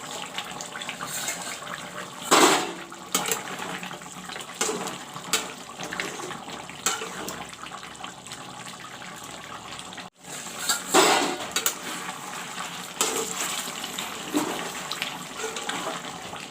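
Chicken curry simmering in a covered pan: a steady hissing, bubbling noise with a few louder splutters, about two and a half seconds in and again about eleven seconds in. The sound breaks off briefly about ten seconds in.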